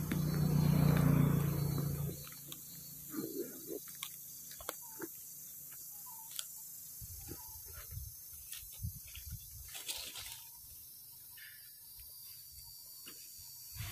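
Macaques eating mango: scattered short clicks, smacks and rustles of chewing and handling the fruit among dry leaves, after a loud low rumble in the first two seconds.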